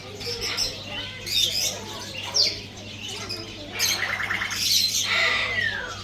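Sun conures chirping and calling: a run of short, sharp chirps, a quick rattling call about four seconds in, and one long call that falls in pitch near the end.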